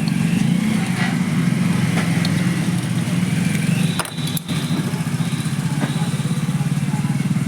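A steady low mechanical drone, like a running motor or engine, with a few sharp clicks about four seconds in.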